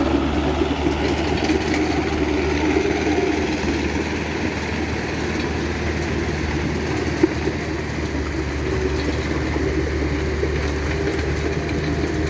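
Hydraulic excavator's diesel engine running steadily with a low, even drone.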